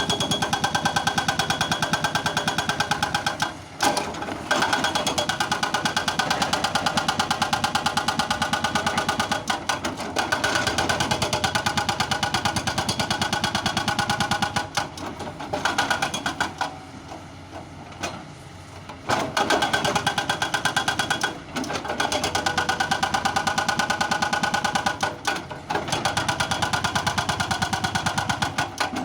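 Doosan excavator working, its diesel engine and hydraulics running with a fast, even pulse that dips briefly a few times.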